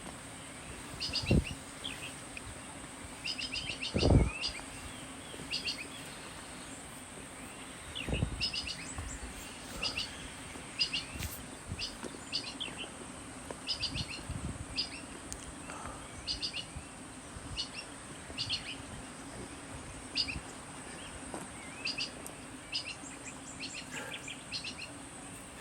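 Forest birds calling: short clusters of quick, high chirps repeated every second or two over a steady high insect drone. A few low thumps, the loudest about four seconds in.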